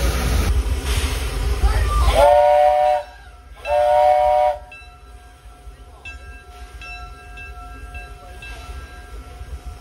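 A 1907 Baldwin steam locomotive with a loud hiss of steam blowing from its cylinder cocks. Then come two short blasts on its steam whistle, a chord of several tones, about two and four seconds in: the two-toot signal that the train is moving off. After that only quieter running sounds remain.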